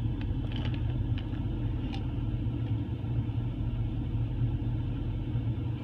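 Steady low rumble and hum of a running engine, with a few faint clicks in the first two seconds.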